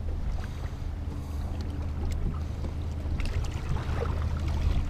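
A boat's motor running with a steady low hum, under wind and choppy water noise.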